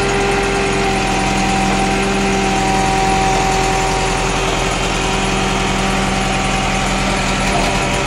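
Diesel engine of a Hitachi UH035 tracked excavator running steadily under load as the machine climbs onto a truck's deck.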